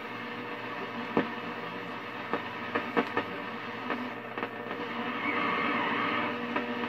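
1934 RCA 128 tube radio's loudspeaker giving off a steady static hiss as its tuning knob is turned between stations, with several sharp clicks in the first half. The noise swells a little about five seconds in.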